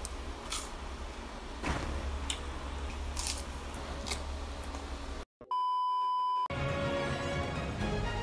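Crisp crunching bites of fried spring rolls and a cucumber slice, several sharp crunches over about five seconds. Then the sound cuts out and a steady high beep sounds for about a second, after which music starts.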